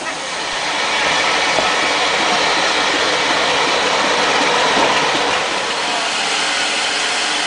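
Steam locomotive giving off a loud, steady rush of steam hiss. It builds over the first second, then holds.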